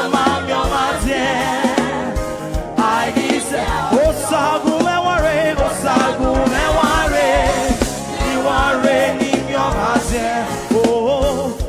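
Live gospel worship music: a man sings lead in Edo with a wavering vibrato over a band with a steady drum beat.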